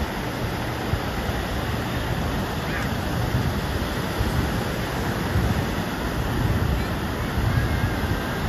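Ocean surf breaking and washing up the sand around wooden pier pilings: a steady rushing with louder rumbling swells as waves come in.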